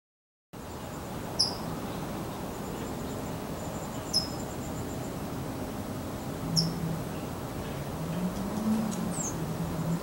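A small songbird, which the uploader takes for a California towhee, giving sharp, short 'cheep' calls. There are three, about two and a half seconds apart, then a quicker falling chirp near the end. They sound over a steady outdoor hiss with a faint high insect trill.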